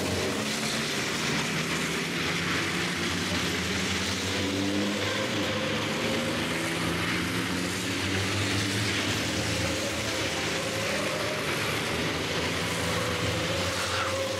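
Several racing trucks' turbodiesel engines running together as the trucks take a corner. Their overlapping engine notes drift slowly up and down as the drivers come on and off the throttle.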